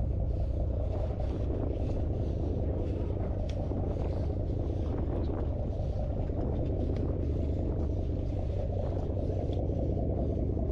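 Steady low drone of a sportfishing boat's engines running, with a few faint scattered ticks.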